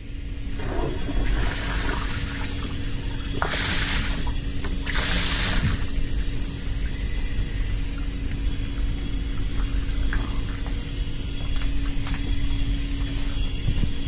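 Blowdown from a fire-tube steam boiler: water and steam rushing out of the blowdown line in a steady loud hiss, with two stronger surges about three and a half and five seconds in and a faint steady hum underneath.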